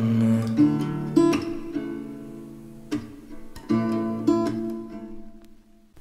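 Background song's acoustic guitar strumming chords with no singing, the chords ringing and fading away to near silence just before the end.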